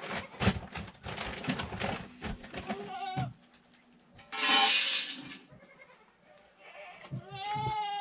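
Goats bleating: a short call about three seconds in, a loud harsh one at about four and a half seconds, and a wavering call near the end. Rustling and clatter come first.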